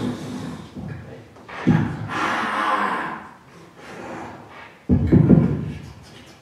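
A person's breathy, non-word vocal sounds and mouth noises in irregular bursts, the loudest about two seconds in and about five seconds in.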